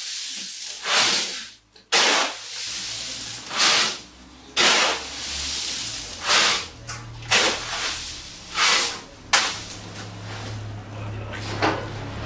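Woven plastic sacks of pistachios rustling and swishing as they are hauled and shifted, in short bursts about once a second, with a low hum under them from about halfway.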